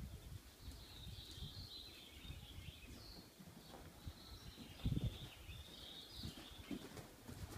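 Small birds chirping and twittering, over dull, irregular low thumps, the strongest about five seconds in.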